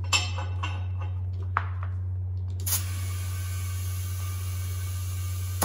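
Compressed air hissing in two spells, a short one at the start and a longer one from about two and a half seconds in, with a sharp click between them, over a steady low hum.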